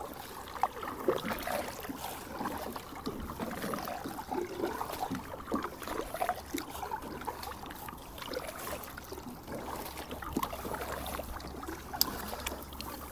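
Double-bladed paddle stroking through calm lake water from a Bic Ouassou sit-on-top kayak, the blades dipping and pulling with irregular splashes and drips running off them.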